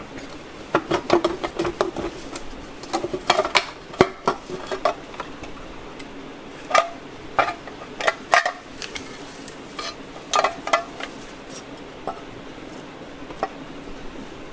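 Irregular metal clinks and knocks as the aluminium rear half of an NP242 transfer case housing is pried apart and lifted off the drive chain and gears.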